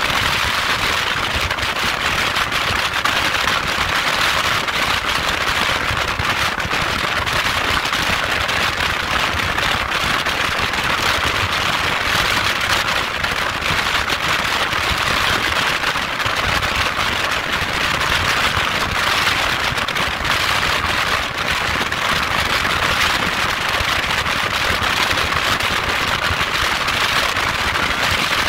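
Wind rushing and crackling over the microphone of a motorcycle cruising at highway speed: a steady, noisy hiss with constant fine crackle and no pauses.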